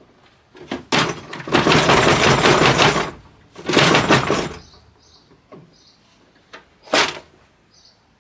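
Wooden toolbox lid with hand saws held in its saw till, swung shut and opened again: a couple of wooden knocks, a few seconds of clatter as the saw-laden lid closes, then a sharp knock about seven seconds in.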